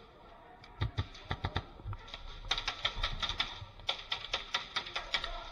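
Airsoft guns firing in rapid bursts of sharp clicks: a short burst about a second in, then near-continuous rapid fire from about halfway through.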